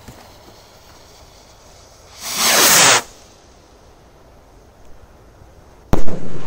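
Firework rocket: a loud hiss lasting under a second about two seconds in that cuts off abruptly, then a sharp bang near the end as the rocket bursts into a red starburst, the sound dying away over most of a second.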